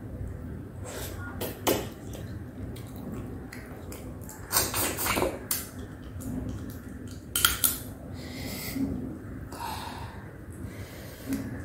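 Close-miked eating sounds of a person eating prawns by hand: wet chewing, lip smacking and finger sucking, with short crackly bursts about five seconds in and again about seven and a half seconds in.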